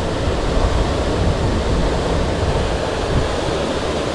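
Wind buffeting the microphone: a steady low rush with no distinct events.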